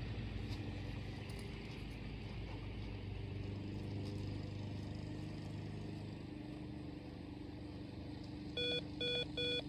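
A steady low engine hum, then near the end three short electronic beeps in quick, even succession, about a third of a second apart.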